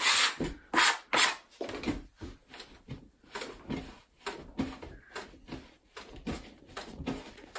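Hands kneading and pressing bread dough on a floured wooden table: a run of soft rubbing, pushing strokes, about two or three a second, louder in the first second and a half.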